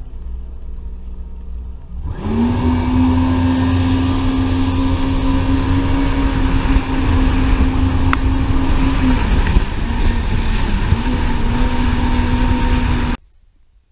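Yamaha VX Deluxe personal watercraft engine running under way, lower and steady at first, then opening up about two seconds in to a high, steady pitch. It eases off briefly past the middle and comes back up, over a steady rush of water spray, then cuts off suddenly near the end.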